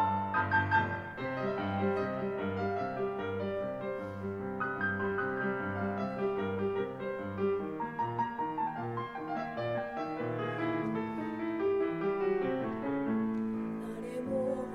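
Piano accompaniment of a children's choir song playing an instrumental passage with no singing: a melody over evenly repeated low notes, about two a second.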